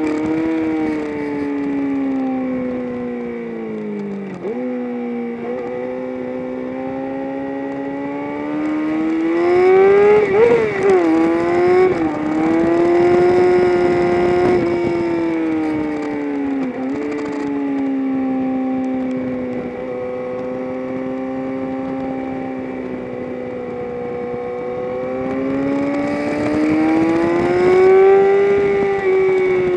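A vehicle's engine running hard, heard on board. Its pitch falls slowly, then rises, with sharp brief dips at gear changes about four, twelve and seventeen seconds in. There is a rough, louder stretch with a quick rise and fall in pitch around ten to twelve seconds.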